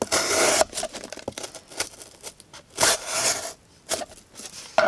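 D2 steel blade of a QSP Penguin folding knife slicing through material with little pressure: two main cuts, one at the start lasting about half a second and another about three seconds in, with fainter scrapes between.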